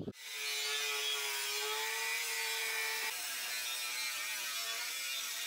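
Angle grinder with an abrasive cutting disc cutting through the steel wall of an old gas cylinder: a steady high whine with a gritty grinding hiss, whose pitch shifts a little about three seconds in.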